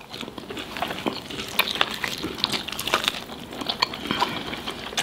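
Close-up eating sounds of two people biting and gnawing meat off fried chicken drumsticks: many quick, irregular clicks and smacks of mouths and teeth on the meat.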